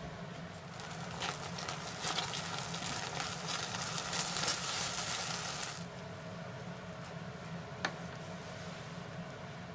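Ketchup sauce sizzling in a hot frying pan as it is stirred with a silicone spatula: a crackling hiss that dies down about six seconds in, as the ketchup's moisture cooks off. A single sharp tap follows near the end.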